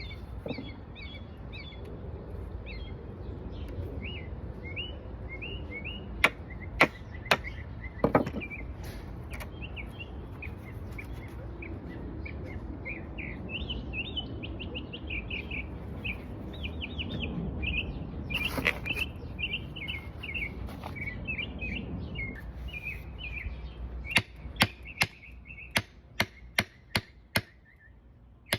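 Small birds chirping and twittering steadily throughout. Four sharp knocks come about a quarter of the way in, and a quick run of about ten sharp knocks follows in the last few seconds.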